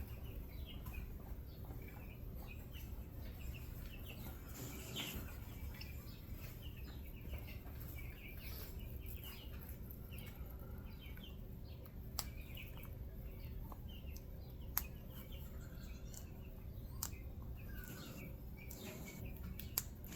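Small birds chirping, many short calls, over a low steady hum, with a few sharp clicks now and then.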